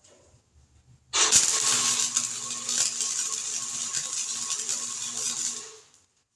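MIG welder running a bead on the sheet-metal patches of a 1950 Chevy truck bed: a steady crackling sizzle of the arc with a low electrical hum, starting about a second in and stopping near the end.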